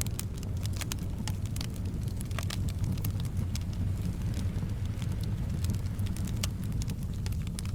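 Wood fire crackling, with frequent irregular sharp pops and snaps over a steady low rumble of soft wind.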